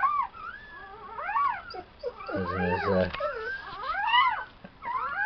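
Newborn puppies squealing and whining, several high thin cries that rise and fall and overlap. A short low groan comes in about two and a half seconds in.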